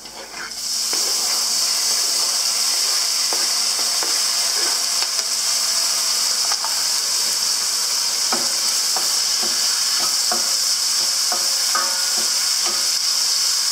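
Diced tomatoes tipped into hot oil with frying onions in a stainless steel pan: a loud sizzle starts about half a second in and holds steady. In the second half, a wooden spoon stirring them adds scattered knocks and scrapes against the pan.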